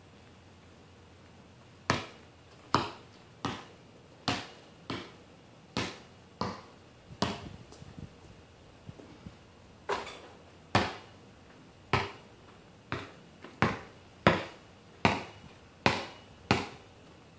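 Basketball being dribbled on a concrete driveway: a steady run of sharp bounces, about one and a half a second, with a short pause in the middle.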